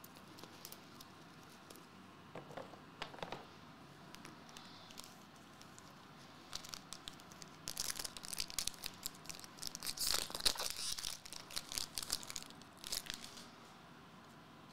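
Trading-card pack wrapper being torn and crinkled by hand. There are a few faint rustles early, then a dense stretch of crackling from about six to thirteen seconds in, loudest around the middle of that stretch.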